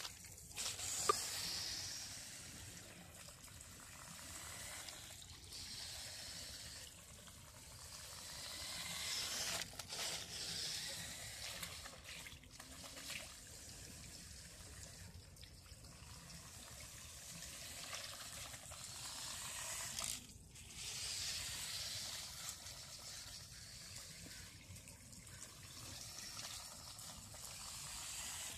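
Lego Technic model car driven by two Power Functions large 9-volt motors running over wet concrete: a hissing whir of motors, gears and wet tyres that swells several times as the car passes close, with a few sharp clicks.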